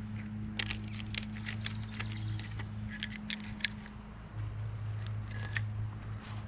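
Light clicks and small metallic rattles as strips of staples and other small hardware are picked up and handled on a wooden table, busiest in the first few seconds, over a steady low hum.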